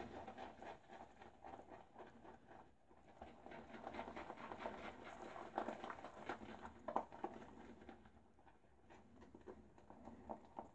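Faint wet swishing and crackling of a 26mm silvertip badger shaving brush whipping shaving soap lather in a bowl, as a continuous run of quick strokes that grows a little louder midway. The lather is still being built up and is not quite ready.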